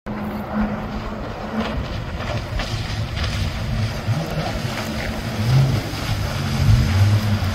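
Jet ski engine running at speed as the craft passes close, with a steady hum and the hiss of spray kicked up off the water. The engine gets louder toward the end.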